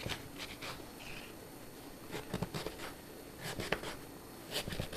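Cutco kitchen knife slicing a sweet potato into chunks on a slatted wooden cutting board: irregular short clicks of the blade meeting the board, with a few scrapes.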